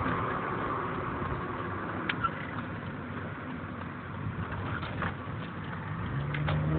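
Honda Fit with an aftermarket intake and A-Spec exhaust heard from inside the cabin with the windows down: mostly a steady road and wind noise with the engine note faint, plus a few light clicks. About six seconds in, the engine note comes up and starts rising as the car begins to accelerate.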